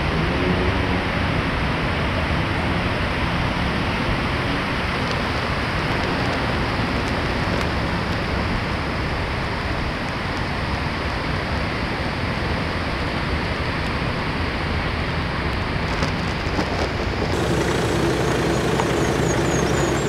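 Steady city road traffic noise, a continuous wash of passing cars. The sound changes abruptly near the end.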